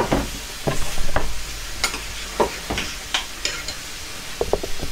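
A utensil knocking and scraping in a pan as a sauce is stirred, in a dozen or so irregular clicks, over a steady sizzle of food frying.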